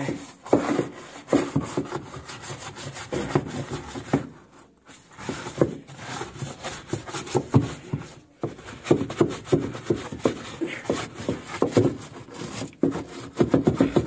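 A hand brush scrubbing the wet, soapy inside of a washing machine's wash tub in quick back-and-forth strokes, with short pauses about 5 and 8 seconds in.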